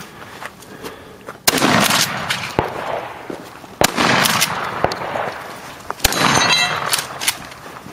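Three rifle shots from a POF P308 semi-automatic .308 rifle, a little over two seconds apart, each followed by a long rolling echo.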